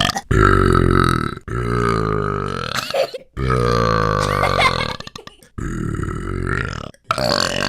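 A man burping loudly, a string of long, drawn-out, low burps one after another with short breaks between them.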